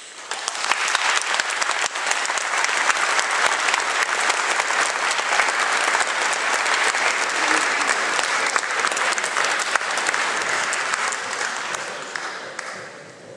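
Audience applauding a choir: dense clapping that starts suddenly, holds steady, and dies away near the end.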